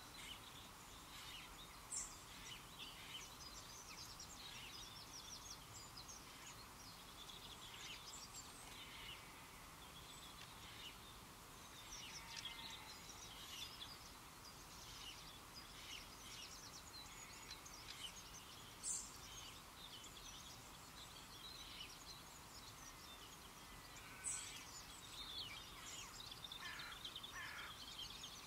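Faint birdsong: many small birds chirping and twittering in short scattered notes over a steady low hiss, with a few sharper, louder calls standing out now and then.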